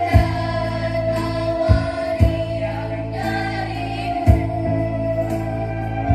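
Girls' choir singing a slow song over an instrumental backing track, with an occasional drum hit.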